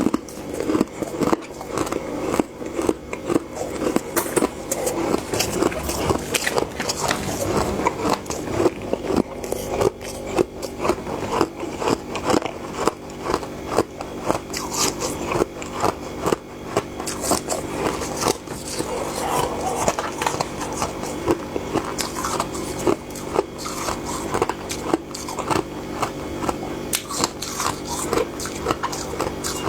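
Close-up crunching and biting of soft freezer frost built up by a humidifier, eaten by hand: dense, irregular crackly crunches several times a second, over a steady low hum.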